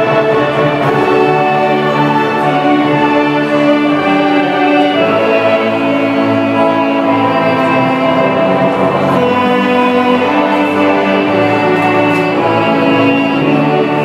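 A hymn played by a church choir's ensemble with violins, moving slowly from one long held chord to the next.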